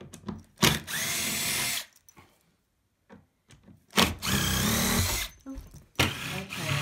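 Cordless drill-driver backing screws out of a sofa bed's arm frame, in three runs of about a second each. The motor's whine rises as the first two runs start, with faint clicks of handling in the gaps.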